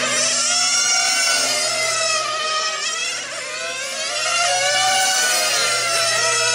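Several 1/8-scale nitro RC racing cars' small two-stroke glow engines buzzing at high revs. The pitch of each rises and falls as the cars accelerate and lift off through the corners, several engines overlapping.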